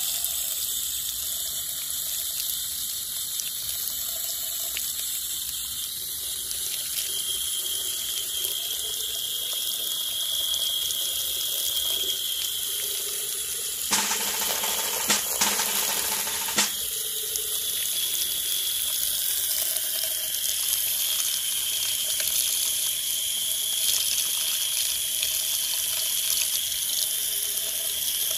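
Steady hiss of a garden hose spray nozzle jetting water onto toy vehicles. About halfway through, a fuller burst of noise with a few sharp clicks lasts roughly three seconds.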